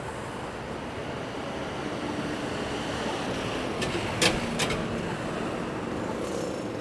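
Steady city street traffic noise, with a few sharp clicks about four seconds in.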